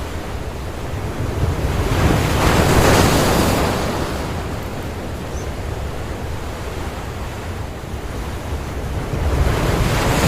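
Ocean surf breaking and washing in, swelling about two seconds in and again near the end, with wind buffeting the microphone.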